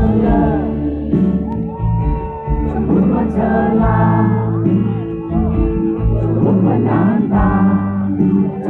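Live band music: electric guitars, bass and drums playing a slow song, with a voice singing over them.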